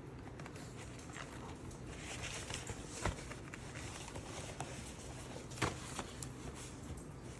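Faint rustling and scratching handling sounds in a small room, with scattered light ticks and two sharp clicks, about three seconds in and again about two and a half seconds later.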